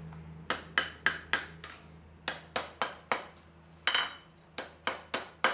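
Hand hammer striking hot steel on an anvil in quick runs of four or five blows, about three to four a second, with short pauses between runs, over a low steady hum. The blows are curling a small scroll on the end of a forged hook.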